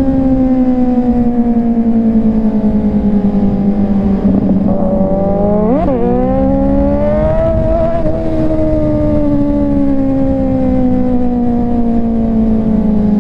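Kawasaki Z900 motorcycle engine running at road speed, its pitch slowly sinking as the revs ease off. About six seconds in there is a quick, sharp throttle blip, then the note climbs a little and sinks slowly again.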